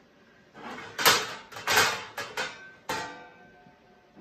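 Panels of a flat-pack roll-away nest box being handled and shifted about, making four or five rustling, scraping knocks through the middle.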